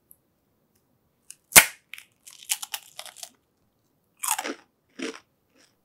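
Someone bites into a fried cannoli shell with one sharp crack, then chews it in a run of crunches that come back in short bursts near the end.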